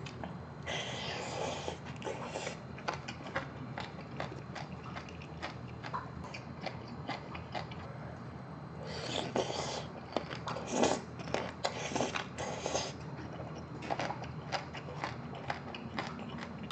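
Close-up chewing of spicy braised monkfish with bean sprouts: many small wet mouth clicks and crunches. There are louder stretches about a second in and again from about nine to thirteen seconds.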